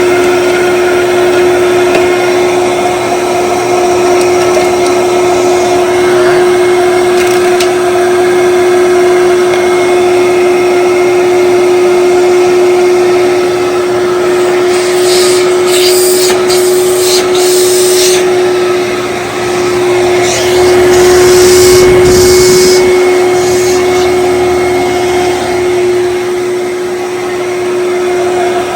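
Kenmore Destiny Plus upright bagless vacuum cleaner running steadily, its motor giving a strong, even pitched whine over a rush of air. About halfway through and again near three quarters, short bursts of hissing come in as it sucks up dirt into the dual cyclonic bin.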